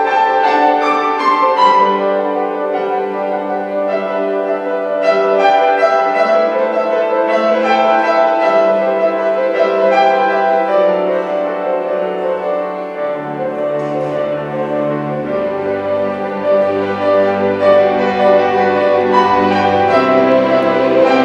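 Classical music: piano with a string orchestra, in sustained, layered notes, with lower bass notes coming in about two-thirds of the way through.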